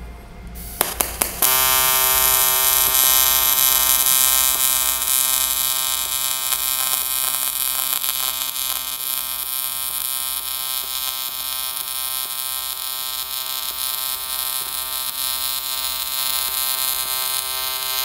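AC TIG welding arc on 1/8-inch aluminum at a fixed 125 amps from a trigger switch. A few short crackles of the arc start come about a second in, then a steady buzz while the bead is run, with no swells in current.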